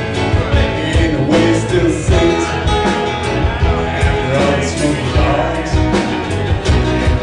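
Live country-rock band playing: strummed acoustic guitar, electric bass, keyboard and drums, with a steady beat.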